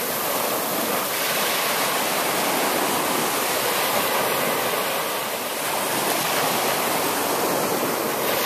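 Small waves breaking and washing through shallow surf, a steady rushing hiss of water.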